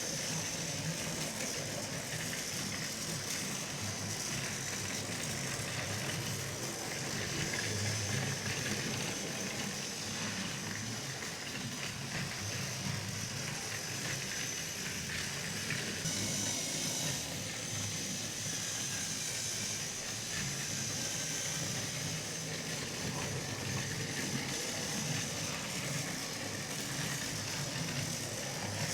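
Battery-powered TrackMaster toy locomotive running along plastic track: a steady high motor whine with the rattle of its wheels on the track.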